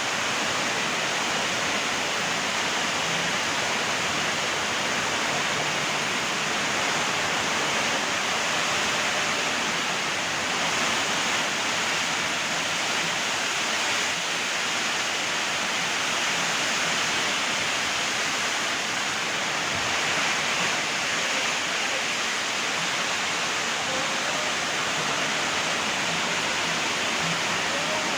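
Heavy rain pouring steadily in a storm, an even unbroken rushing hiss.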